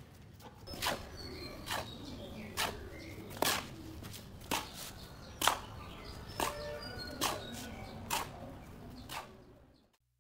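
A pile of sand being turned over on a tiled floor: a sharp scrape about once a second, with faint bird chirps behind. The sound cuts off suddenly near the end.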